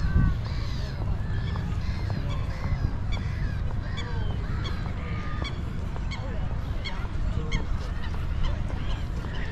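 A flock of birds calling, with many short calls overlapping several times a second, over a steady low rumble.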